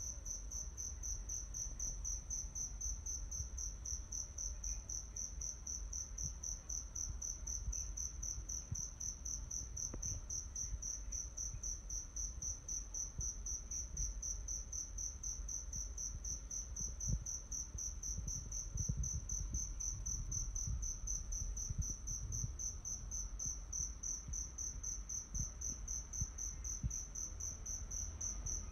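Insects chirping in a steady, rapidly pulsing, high-pitched trill that never lets up, over a low rumble.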